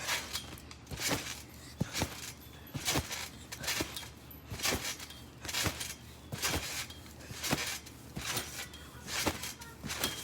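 Regular thumps about once a second from a person jumping and landing repeatedly during a run of backflips.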